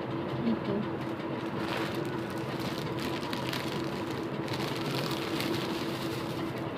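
Plastic bag crinkling and rustling in bursts as it is handled and opened, over a steady low hum.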